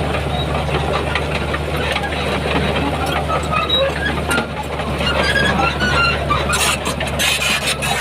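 Heavy construction machine's diesel engine running steadily, with a run of sharp clanks and rattles in the last second or two.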